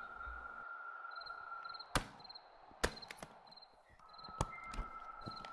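Faint background ambience of chirping night insects, a steady high trill with short repeated chirps above it, broken by a few sharp clicks and knocks.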